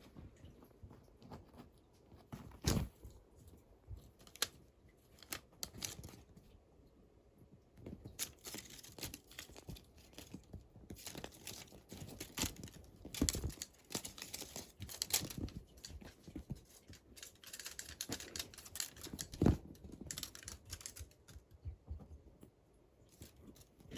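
Kittens moving about and playing, giving irregular scratching and rustling with scattered light clicks and a few louder knocks about 3, 13 and 19 seconds in.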